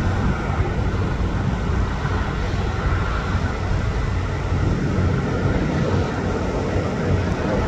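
Twin-engine jet airliner at takeoff power during its takeoff roll, a steady engine rumble heard from beside the runway.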